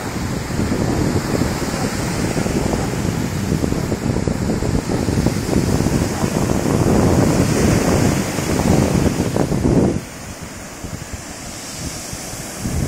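Surf breaking and washing up a sandy beach, with wind buffeting the microphone. The low rumble drops noticeably about ten seconds in, leaving a quieter wash of waves.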